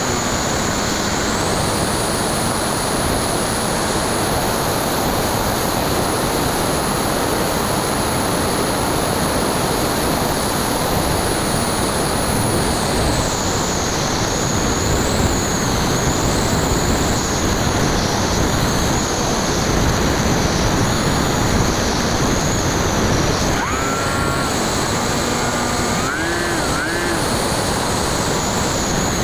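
Onboard sound of a Bixler 2 electric RC plane in flight: steady wind rush over the airframe with the high whine of its 1400 kV brushless outrunner motor and 9x6 propeller. The whine drops in pitch about twelve seconds in and then wavers with the throttle, and a few short rising tones come near the end.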